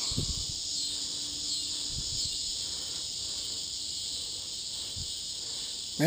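Cicada calling with a steady, high-pitched buzz, with a few soft low bumps from handling near the start and about two seconds in.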